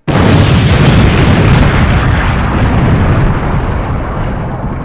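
Explosion sound effect on a studio logo intro: a sudden loud blast, then a long low rumble whose hiss fades away over about four seconds.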